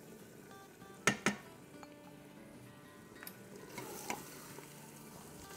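Two sharp knocks of a utensil against the metal pot about a second in, then stirring with a few lighter clinks and a soft sizzle as yogurt is worked into the frying masala in the pressure cooker's pot on sauté mode. Soft background music runs underneath.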